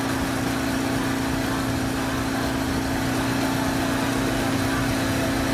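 Small motor scooter's engine running at a steady speed, a continuous even hum with road noise.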